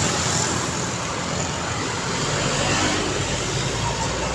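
Busy road traffic passing: a steady wash of engine and tyre noise from cars and trucks, with a low engine hum underneath.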